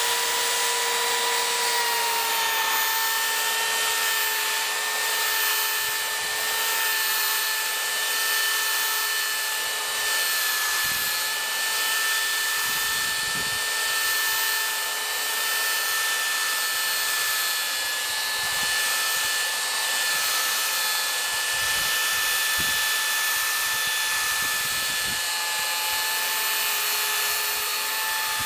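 Handheld electric belt sander running steadily as it sands a wooden window sash repaired with epoxy. Its motor whine settles slightly lower in pitch about two seconds in as the sander bears on the work, with a few faint knocks against the frame.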